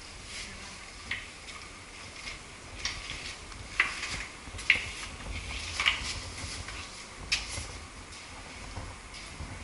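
Footsteps on a floor of loose flat stones, the stones clinking and clacking against each other at irregular moments, with a few sharper clacks in the middle.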